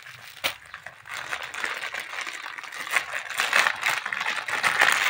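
Clear plastic wrapping crinkling and rustling as hands work it open around a bundle of mugs, with a sharp click about half a second in. The crinkling grows louder toward the end.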